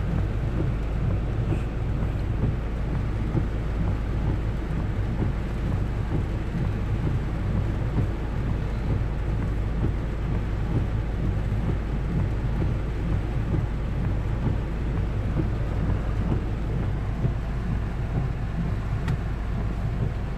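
Heavy rain falling on a car's roof and windscreen, heard from inside the cabin: a steady rushing noise with a constant deep rumble underneath.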